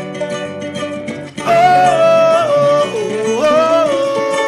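A man singing a wordless 'laia, laia' pagode refrain, long held notes sliding up and down between pitches, over a plucked string accompaniment. The voice comes in strongly about a second and a half in, after a quieter stretch.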